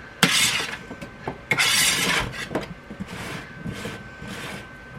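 Kitchen handling noise: a pan of cut potatoes being moved about, with two short scraping rattles and several sharp clinks of metal and dishes, over a faint steady high-pitched hum.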